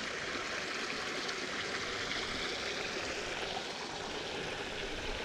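Small stream running steadily over rocks, a constant rushing and trickling of water.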